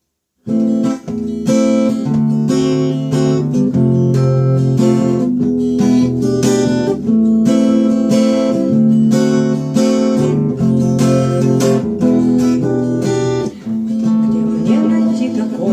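Acoustic guitar strumming a steady run of chords, the instrumental introduction to a song; it starts about half a second in.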